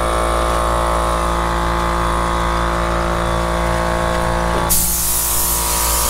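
A steady machine whine and hum runs throughout. About three-quarters of the way in, a gravity-feed paint spray gun gives a hiss of air for about a second and a half as it sprays paint.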